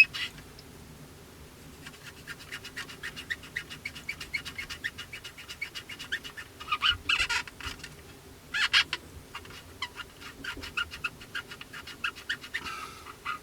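Quick, squeaky scratching strokes of a tool or wipe rubbed over a plastic model kit's wing joint as dissolved filler is cleaned from the seam, with a few louder bursts of strokes about seven and nine seconds in.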